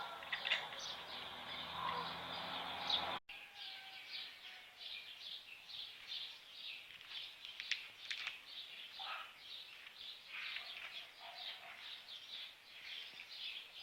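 Birds chirping, with many short, quick calls repeating throughout. A faint low hum underneath stops at a brief dropout about three seconds in.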